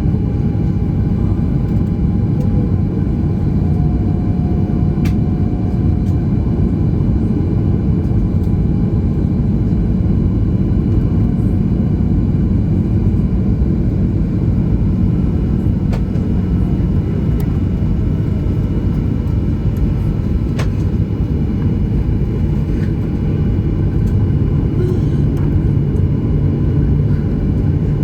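Steady low rumble inside the cabin of a Boeing 737-900 while it taxis, its CFM56 engines at low power, with a low hum and a few faint clicks.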